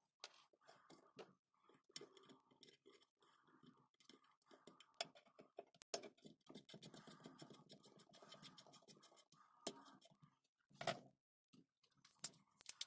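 Faint handling of a cast-iron corner clamp: steel clamp screws being wound into the frame, a run of light rattling clicks, then two sharper knocks near the end.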